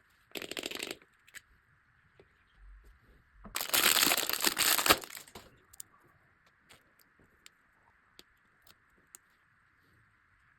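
Clear nano tape being handled, crinkling and crackling in two bursts, a short one at the start and a longer, louder one about three and a half seconds in, followed by scattered small clicks and taps.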